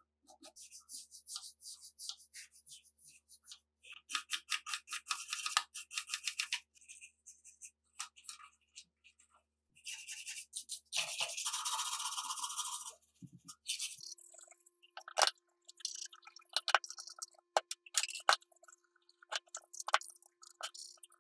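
Small stiff brush scrubbing rust off the metal of a rusty SVT-40 rifle in quick short strokes, in three spells. In the last third, scattered sharp clicks and taps of the rifle's parts being handled.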